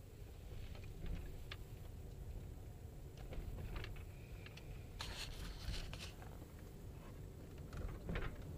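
Low, steady rumble inside a moving car's cabin, with scattered small clicks and rattles and a brief rustling hiss about five seconds in.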